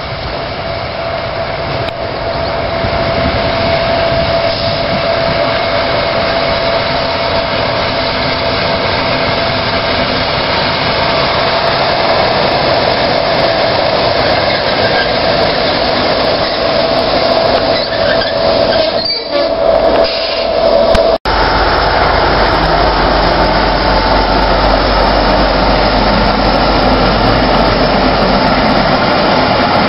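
An ST44 (M62 'Gagarin') diesel locomotive's two-stroke V12 engine running loud as the locomotive passes close by, with a steady whine over the engine noise. About two-thirds of the way through the sound briefly dips and cuts off for an instant, then returns with a deeper low rumble.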